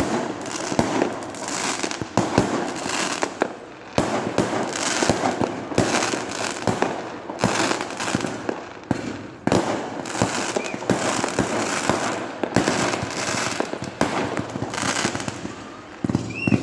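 Fireworks display going off: a steady barrage of sharp bangs at irregular intervals over continuous crackling.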